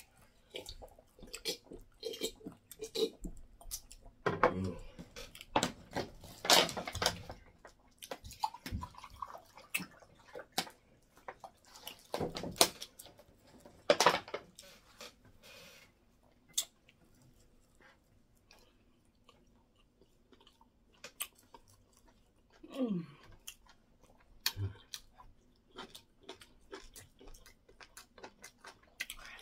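Close-up mouth sounds of people eating semolina fufu and egusi soup by hand: chewing with irregular wet clicks and lip smacks, a few louder smacks standing out.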